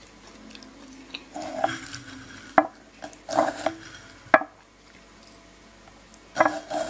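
Close-up eating sounds of soy-marinated raw salmon: short spells of wet chewing, with two sharp clicks of the fork and chopsticks against the dish.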